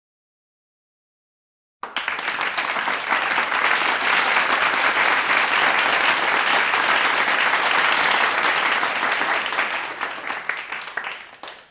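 Medium-sized crowd applauding: the clapping starts abruptly about two seconds in, holds steady, then thins out and dies away near the end.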